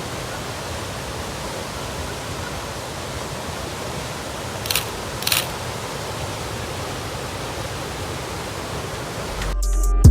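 Steady rushing of a forest waterfall, with two short sharp clicks about half a second apart near the middle. Electronic music fades in near the end.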